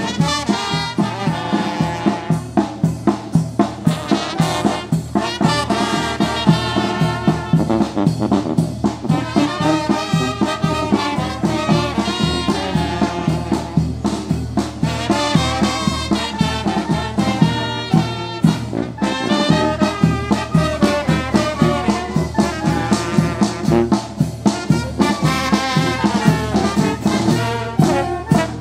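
Village brass band of trumpets, trombones and sousaphone playing a tune with a steady beat as it marches.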